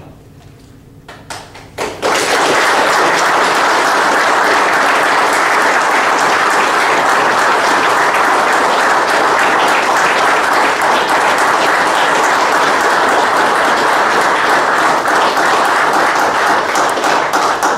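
An audience applauds: a few scattered claps, then steady applause from about two seconds in, at the close of a press conference.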